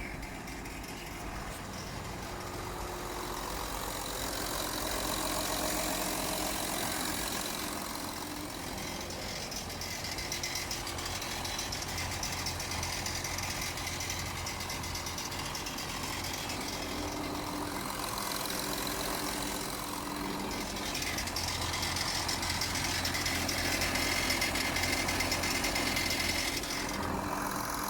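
Audi Q7 3.0 TDI V6 diesel engine idling just after a cold start, with a ticking noise from the engine that is present as soon as it is switched on.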